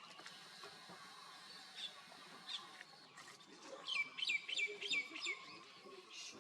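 Wild birds chirping: a couple of single high calls, then a quick run of about six down-slurred chirps about four seconds in, over faint outdoor background noise.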